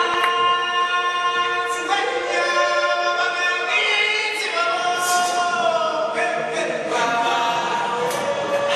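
Music: a choir singing long held notes that shift slowly in pitch, with a few short sharp hits.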